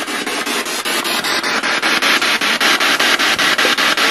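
A portable radio used as a ghost box, sweeping through the FM band and played through a small portable speaker. It gives a steady static hiss chopped by rapid, even breaks as it steps from station to station.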